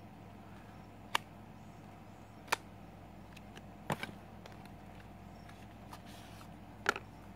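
Small product packaging being worked open by hand: a handful of sharp clicks and taps spread through, two close together about four seconds in, over a faint steady hum.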